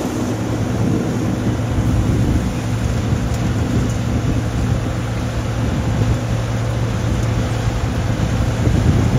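Peanut harvesting machine running steadily: a constant engine drone under the rattling, rushing noise of the picking and cleaning works.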